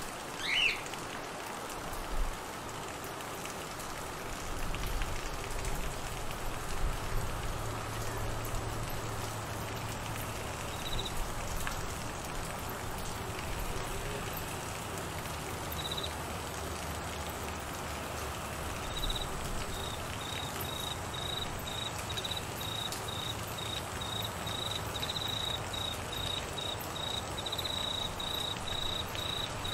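Steady rain falling on trees and grass. A high-pitched cricket chirp joins in, a few times at first and then regularly, about two chirps a second, through the last third. A brief rising call sounds near the start.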